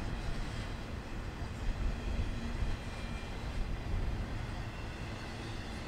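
Intermodal freight train's container and trailer cars rolling past: a steady rumble of wheels on rail.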